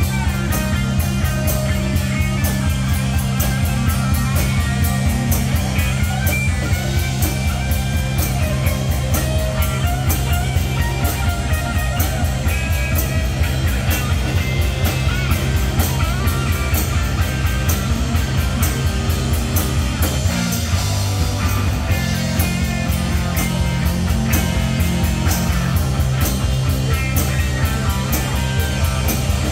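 Live rock band playing loud amplified music: electric guitar and bass over drums keeping a steady beat, with keyboard on stage.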